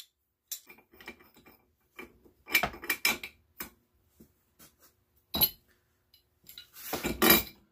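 Scattered metal clinks and clanks as a brass union on a water valve held in a vise is broken apart and the loose brass fitting and tools are handled. The knocks come in louder clusters about two and a half, five and a half and seven seconds in.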